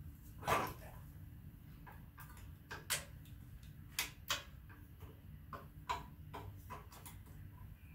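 Scattered sharp metal clinks and knocks of a wrench and hand tools working on an AMC 4.2-litre inline-six engine during teardown, coming unevenly every second or so.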